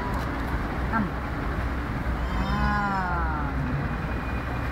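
One drawn-out vocal call, about a second long and slightly falling in pitch at the end, a couple of seconds in. Underneath it runs a steady low outdoor traffic rumble, with a brief chirp about a second in.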